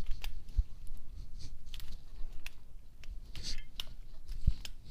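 Irregular plastic clicks from a 1x3x3 Rubik's-cube fidget spinner as its layers are twisted by hand, with two dull handling thumps, one about half a second in and one near the end.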